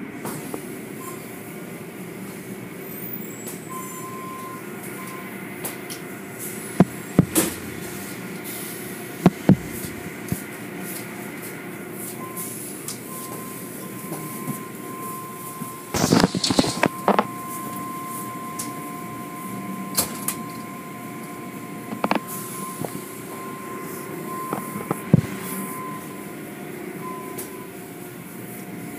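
Automatic car wash tunnel machinery running with a steady hum, a thin high whine coming and going through the second half. Several sharp knocks and thumps break through it, the loudest cluster about halfway through.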